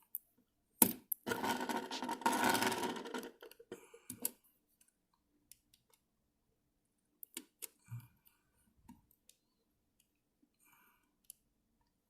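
Small plastic clicks and rubbing from a game controller's plastic shell and rubber button membrane being handled and pressed into place: a sharp click about a second in, a couple of seconds of scraping and rubbing, then sparse light clicks.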